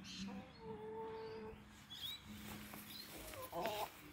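Brown domestic hens giving soft, faint drawn-out calls, with a short louder call near the end.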